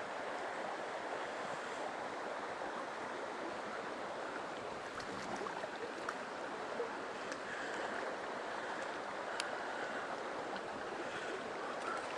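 Mountain stream water rushing steadily, with a few faint sharp clicks in the second half.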